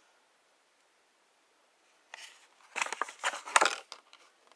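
Hand-handling noise of a folding pocket knife: a cluster of rustles and small clicks starting about two seconds in and lasting about two seconds, after a silent start.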